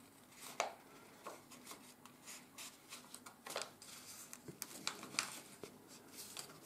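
Faint rustling and crinkling of a sheet of ordinary 80 g/m² office paper being folded and creased by hand, in scattered short rubs and crackles.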